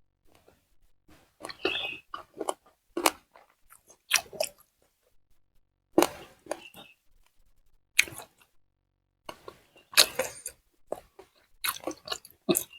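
A person eating close to the microphone: irregular crunchy bites and wet chewing, with short pauses between mouthfuls.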